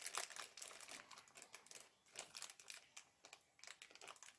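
Faint clicking and crinkling of small precision screwdrivers and bits being rummaged through and handled. The clicks come thick for about two seconds, then thin out to a few scattered ones.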